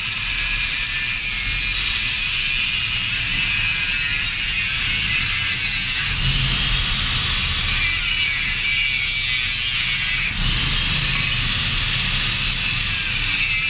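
Handheld angle grinder grinding a small metal pipe: a steady, loud, high grinding whine from the disc on the metal, easing slightly for a moment about six and ten seconds in.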